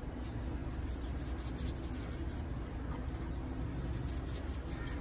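Light scratchy rubbing and shaking as seasoning is rubbed by a gloved hand into a split mackerel and shaken from a small shaker onto the fish, over a steady low rumble.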